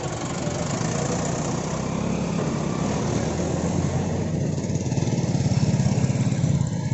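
JCB 3DX backhoe loader's diesel engine running steadily, growing louder past the middle as it works harder, then easing off slightly near the end.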